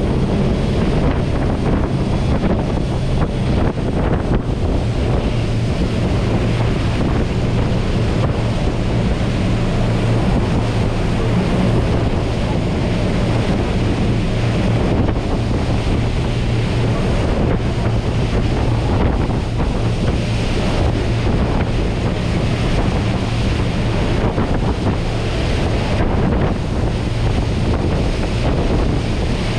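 Twin MAN V8 diesel engines driving Marine Jet Power 350X waterjets with the boat running at speed, a steady low engine drone under the rush of the jet wash and wind on the microphone.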